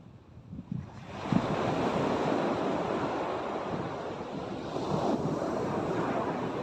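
Sea surf breaking on a beach: a steady rush of waves that swells up about a second in, with wind gusting on the microphone.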